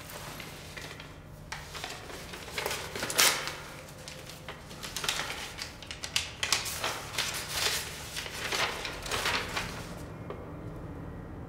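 Paper rustling and crackling as a sheet is handled and unfolded into a letter, loudest about three seconds in, stopping shortly before the end.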